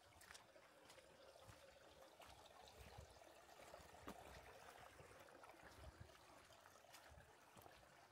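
Faint trickle of a small forest stream, swelling a little in the middle and easing again, with a few soft clicks and low thumps.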